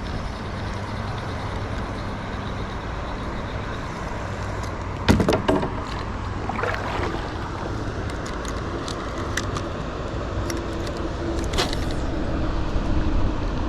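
Steady rushing of a small waterfall, with a few short clicks and knocks about five, six and a half, and eleven and a half seconds in.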